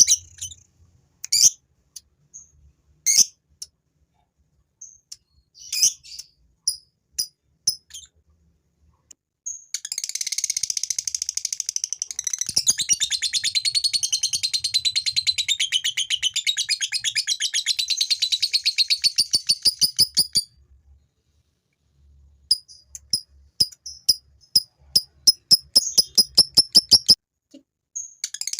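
Male lovebird doing its ngekek: a long, rapid, unbroken chattering trill of about ten seconds, with sharp single chirps before it and a run of quick separate calls after it.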